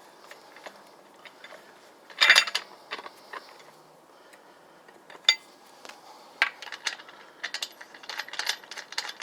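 Metal lug wrench clinking against lug nuts as the nuts are spun down and snugged onto the wheel studs. There is a loud metal clank about two seconds in and a sharp click a few seconds later, then a quick run of light ticks through the second half.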